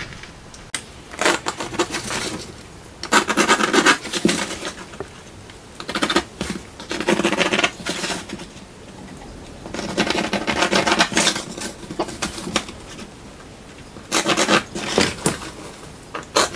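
Scratchy strokes of a line being drawn on the wall along a 1-inch steel scale, with the scale scraping as it is moved and repositioned. This marks a cut line an inch inside a traced outline. There are about eight separate strokes with short pauses between them.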